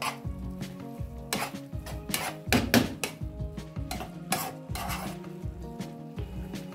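A spoon scraping and clinking against a nonstick frying pan as a minced-meat and shrimp filling is stirred and turned, with the filling sizzling. The strokes come irregularly, several a second, the loudest about two and a half seconds in.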